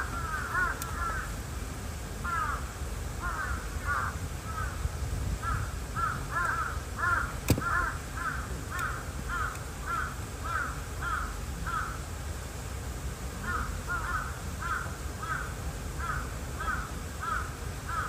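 Crows cawing in repeated series of short, harsh calls, about two a second, with brief pauses between series. A single sharp click about seven and a half seconds in.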